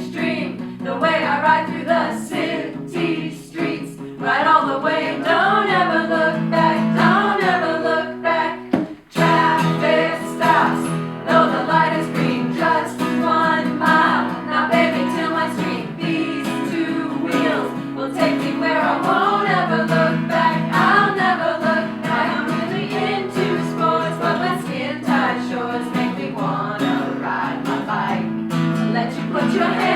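Choir singing a pop song over sustained backing chords, with a brief break in the sound about nine seconds in.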